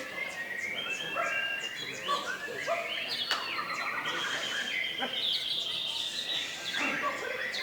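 Several caged contest songbirds singing at once: dense, overlapping chirps, rapid trills and whistles, with a murmur of voices underneath.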